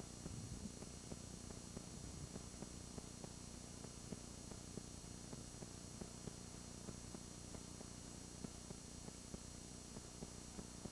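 Faint steady hum and hiss of camcorder recording noise, dotted with many small light ticks; no clear sound event stands out.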